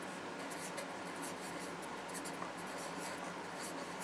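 Handwriting: a pen scratching across a writing surface in quick, irregular strokes.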